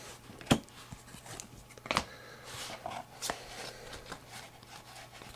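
Trading cards handled by hand as a pack is flipped through: soft rustling of card stock with three sharp snaps.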